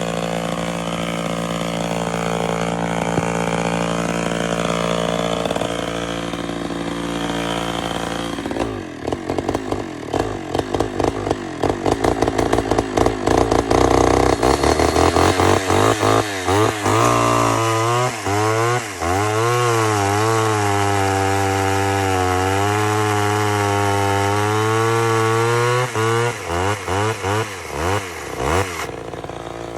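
Homelite Super XL two-stroke chainsaw running: a steady idle, then from about 9 seconds in the throttle is blipped over and over. It is then held at high speed with a wavering pitch, and blipped again in quick bursts near the end.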